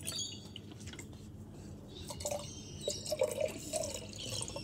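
Liquid poured from a plastic bottle into a cup, dripping and splashing.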